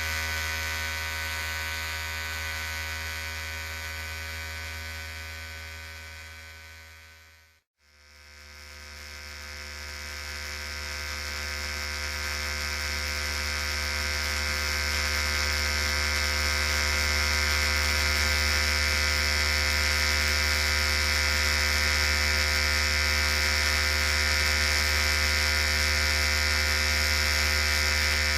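Electric hair clipper buzzing steadily. The buzz fades out to silence about eight seconds in, then swells back up and runs on steadily.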